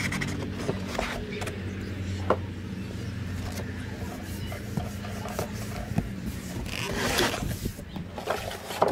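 Cardboard and moulded pulp packaging being handled: rubbing, rustling and scattered light knocks. A longer scraping rustle comes about seven seconds in. A steady low hum runs underneath for the first six seconds or so, then fades.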